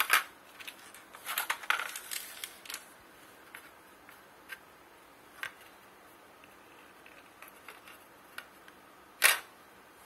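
Sharp clicks and light knocks from a microwave oven's control circuit board and plastic front-panel housing being handled. There is a flurry of clicks in the first few seconds, then scattered single ticks, and one louder knock near the end.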